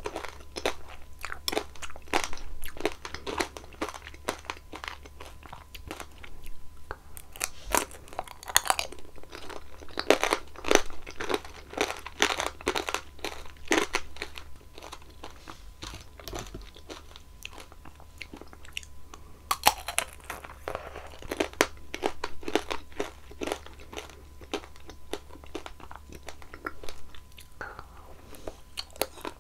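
Close-miked crunching and chewing of strawberry tanghulu: the hard candied sugar shell cracks between the teeth in quick crackly runs, with quieter stretches of chewing between them.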